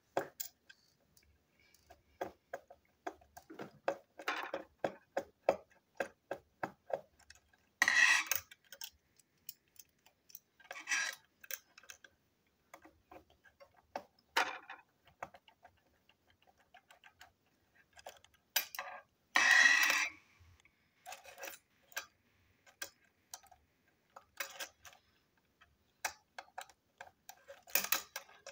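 A screwdriver working screws out of a small plastic toy train chassis: a run of light, irregular clicks and ticks, with a few louder, longer scrapes of tool and plastic parts.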